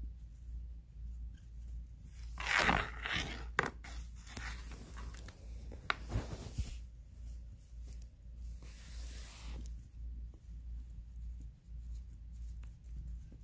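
A fluffy toy brushing and scraping against the phone's microphone: several short rustling bursts of about a second each, with a couple of sharp clicks between them.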